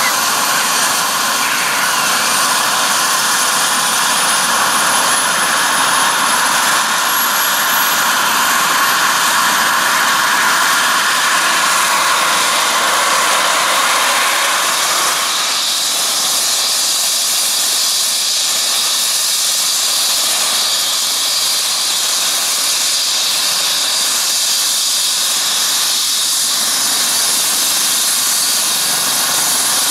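Eurocopter EC135 helicopter running on the ground with its main rotor turning: a steady turbine whine and hiss. A very high whine rises slowly in pitch over the first dozen seconds. About halfway through, the mid-pitched whine gives way to a higher one.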